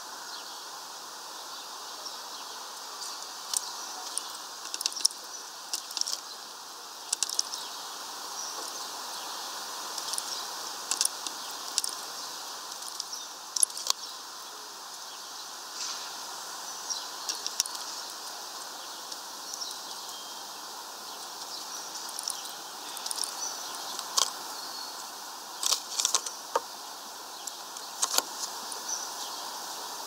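Great spotted woodpecker pecking at food on a feeder: irregular sharp taps and clicks, sometimes in quick clusters of two or three, over steady background noise.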